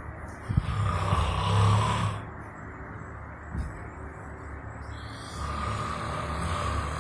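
A man snoring in his sleep: two long, loud snores about five seconds apart.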